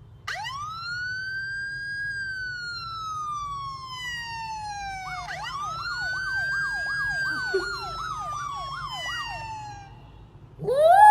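Emergency vehicle siren: one long wail that rises, holds and slowly falls, then switches to a fast yelp of about two and a half sweeps a second over a second, slower wailing tone.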